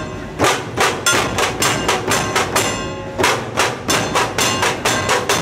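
Dhol-tasha troupe drumming: dhol barrel drums struck hard with sticks in a fast, even rhythm of about three beats a second, over a lasting metallic ring. The beat breaks off briefly halfway through and stops at the end.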